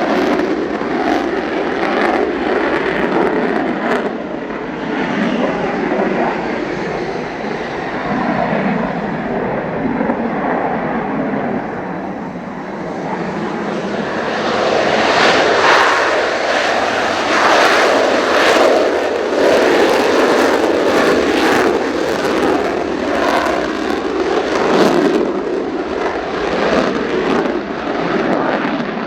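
Mitsubishi F-2 fighter jet engine running as a continuous loud rush that swells louder about halfway through, with gusts of strong wind buffeting the microphone.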